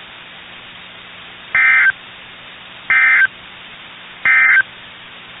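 Emergency Alert System end-of-message signal: three short, evenly spaced bursts of digital data tones, a little over a second apart, over a steady background hiss. The bursts mark the end of the alert broadcast.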